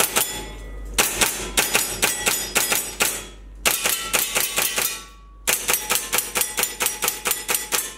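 AW Custom FN M4A1 gas blowback airsoft rifle firing rapid strings of shots, about four or five a second, each a sharp clack of the bolt cycling. The shots come in three strings with short pauses between them.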